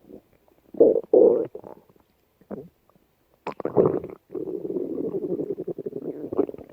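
A person's stomach growling: two short gurgles about a second in and a brief one near the middle, then a long, fluttering growl from about halfway through to the end.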